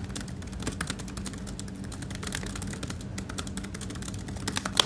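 Fast typing on a laptop keyboard: a quick, uneven stream of key clicks.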